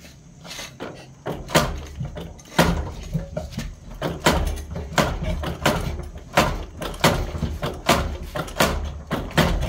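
Repeated clunks, roughly one every two-thirds of a second, as a motorcycle's rear wheel is jerked back and forth by hand against its chain and gearbox in second gear with the engine off. The drivetrain holds fast: the clutch is locking, not slipping.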